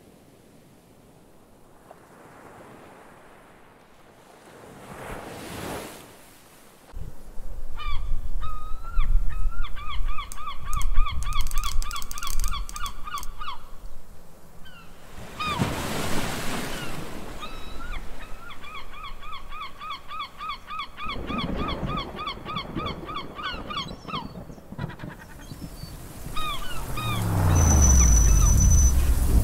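Sea surf and wind rumbling, with a bird giving two long runs of rapid, repeated short calls. Near the end a car engine rises as a car pulls up.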